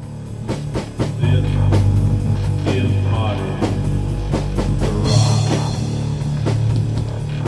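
Rock theme music with a fast, steady drum-kit beat, bass and guitar, fading in over the first second.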